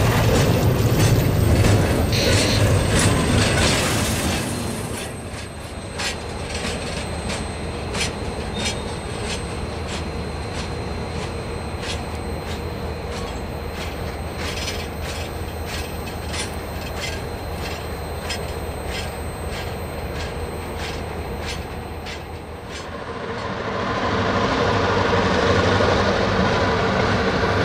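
Double-stack intermodal well cars rolling past close by, wheels clicking over rail joints. The train fades as it pulls away, and the regular clicking carries on. About 23 seconds in, a BNSF diesel locomotive's engine takes over, running steadily.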